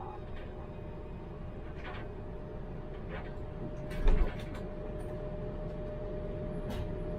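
Tram running hum heard from the driver's cab, with a few light clicks and one short loud thump about four seconds in. After the thump a steady tone comes through more strongly.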